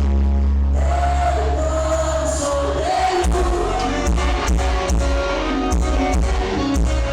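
Live band music played loud over a PA, with a melody held above a heavy pulsing bass and a steady beat, and singing.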